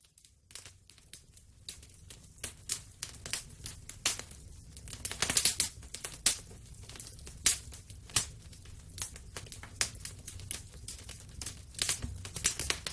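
Wood fire crackling in a fireplace: irregular sharp pops and snaps, some in quick clusters, over a low steady rumble.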